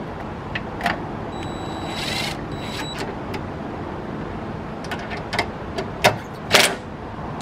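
Cordless DeWalt impact driver running a 10 mm bolt down into a steel fender bracket. A motor whine lasts about a second and a half, with a short rattling burst near two seconds in. Near the end come a few clicks and two short, louder bursts.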